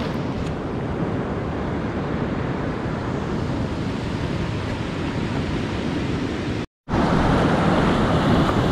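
Surf washing on the shore with wind buffeting the microphone, a steady rushing noise. It cuts out for a moment about seven seconds in, then surf and wind resume.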